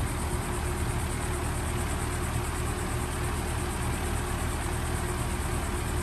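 2021 2-ton Maratherm heat pump outdoor unit running steadily in cool mode: the condenser fan and compressor give an even hum with a faint held tone over it.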